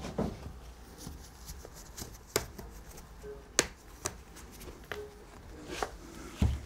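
Hands working a goatskin head and its cord around the wooden frame of a daf frame drum make scattered sharp clicks and taps, about six of them. There is a low thump right at the start and another near the end.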